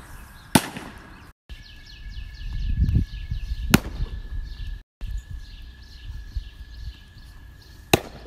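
Baseball smacking into a catcher's mitt three times, each a single sharp pop, a few seconds apart.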